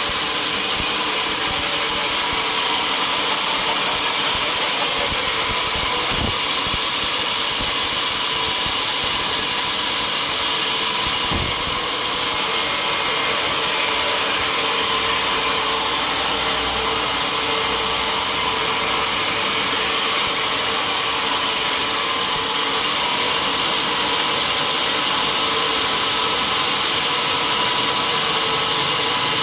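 Sawmill machinery running: a steady, unbroken saw-and-motor noise, with two faint knocks about six and eleven seconds in.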